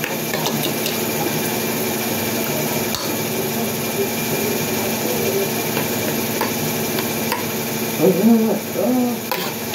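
A metal spoon and fork clicking and scraping now and then on a ceramic plate of rice, over a steady background hum. A brief murmur of voice about eight seconds in.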